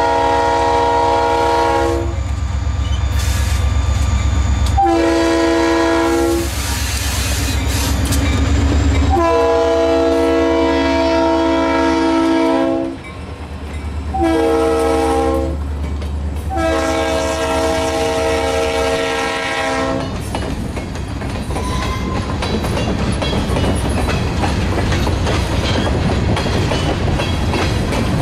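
Diesel freight locomotive's air horn sounding a run of blasts over the engine's low drone as it passes; the last four go long, long, short, long, the grade-crossing signal. After the horn stops, about two-thirds of the way in, freight cars roll by with wheels clacking over the rail joints.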